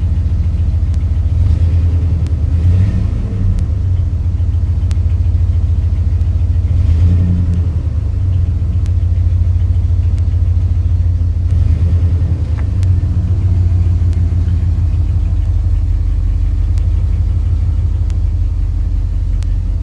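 2002 Dodge Ram 1500's engine idling steadily, warming up with a new thermostat still closed.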